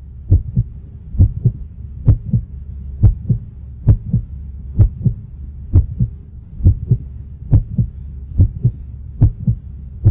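Heartbeat sound effect: paired lub-dub thumps about once every 0.9 seconds, over a low hum.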